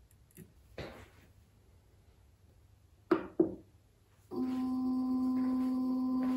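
Two sharp clicks as the control knob of an Anycubic wash-and-cure station is pressed, then about a second later the curing cycle starts: the turntable motor runs with a steady pitched hum.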